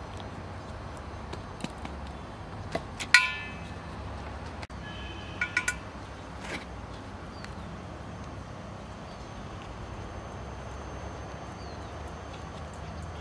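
A few sharp, ringing metallic clinks of a knife and metal dishes during vegetable prep. One loud clink about three seconds in is followed by three quick clinks a couple of seconds later, over a steady low rumble.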